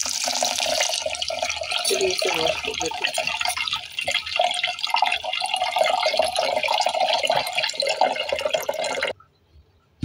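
Tap water running into a stainless steel pot of rice and split dal, splashing and sloshing as a hand swirls the grains to wash them. The water cuts off suddenly near the end.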